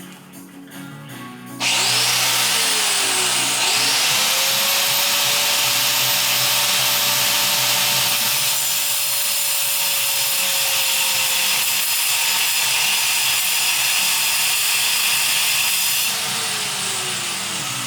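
Electric power tool cutting into a stripped oil drain plug. It starts suddenly under two seconds in, its motor pitch dips and recovers as it bites, then runs steadily and winds down near the end.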